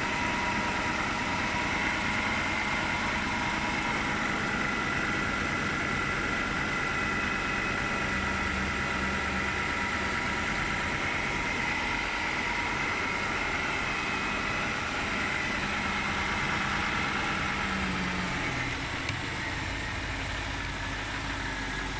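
BMW V8 engine idling steadily and smoothly, with no misfire and no shaking. The sound drops slightly in level about 18 seconds in.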